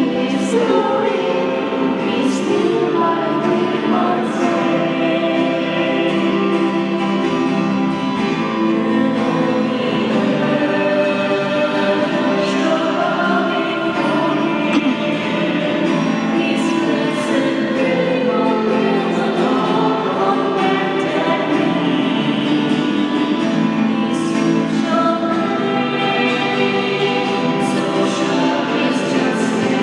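A woman singing a devotional song into a microphone, accompanied by acoustic guitar, with a church's reverberation.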